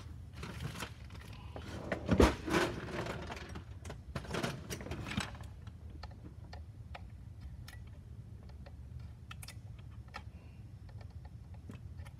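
Handling clicks and knocks as a ToolKitRC M4Q four-port charger is picked up and its balance-port pins are poked with a small pointed metal tool. One loud knock comes about two seconds in, then lighter scattered ticks over a low steady hum. The probing is aimed at a faulty balance port whose pins get pushed into the housing.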